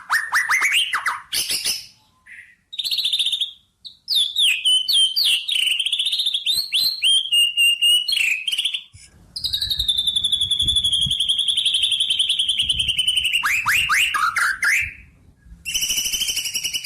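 A songbird singing in loud, varied phrases: quick falling trills and sharp high chirps, then a long, rapidly warbled high phrase through the middle, ending in another run of falling notes, with short pauses between phrases.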